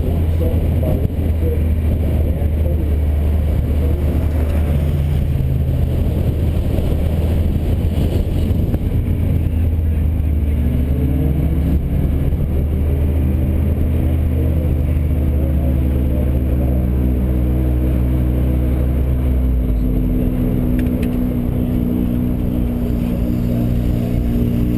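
Car engine running at low, steady revs while the car rolls slowly at low speed, with a deep drone. About twenty seconds in, the lowest part of the engine note drops as the car slows.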